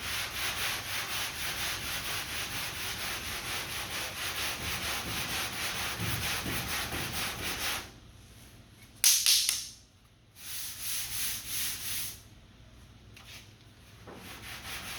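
Sandpaper on a hand sanding block scraping over lacquer primer covering a bondo dent repair, in quick, steady back-and-forth strokes. The sanding stops at about eight seconds, a short louder rasp comes about a second later, and the strokes start again in two more short runs.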